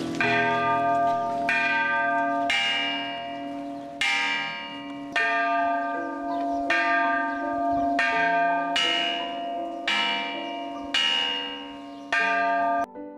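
Church bell rung by a hand-pulled rope, striking about once a second with each stroke ringing on and fading; it cuts off suddenly near the end.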